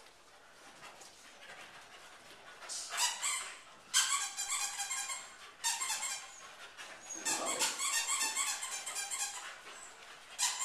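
Small dogs giving excited, high-pitched yips and whines during play, in repeated bursts starting about three seconds in.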